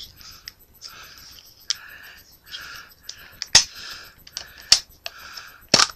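Rustling of packaging being handled while a small camera is unpacked, with a few sharp clicks and taps about three and a half, four and three-quarter and nearly six seconds in.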